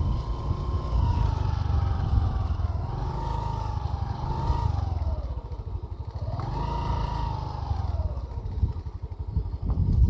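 Wind buffeting the microphone as a low, uneven rumble, while a small engine runs some way off, its whine rising and falling in pitch several times.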